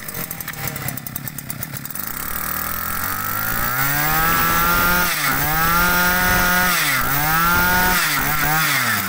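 Shindaiwa 260 two-stroke brush-cutter engine speeding up over the first few seconds, then running fast. Its pitch dips briefly and recovers four times.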